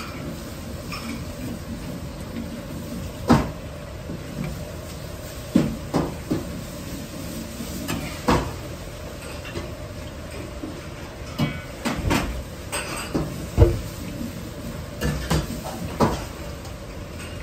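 Oil bubbling steadily in a wok as a batch of coated food deep-fries, broken by about a dozen sharp metal clanks of a ladle and pots in a busy kitchen.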